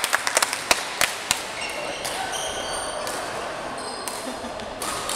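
A few people clapping briefly. After that, athletic shoes squeak several times in short high chirps on the indoor court floor.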